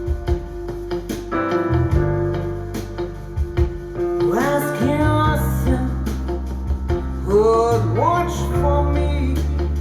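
Music: an instrumental passage with sustained bass, guitar and keyboard. A lead instrument plays two phrases of sliding notes, about four seconds in and again about seven seconds in.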